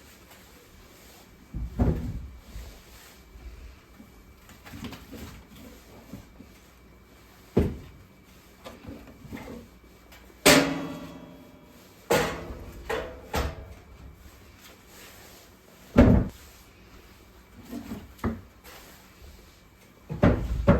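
Split firewood logs knocking and clonking as they are handled and stacked: about seven separate thumps spaced a few seconds apart, one near the middle ringing briefly.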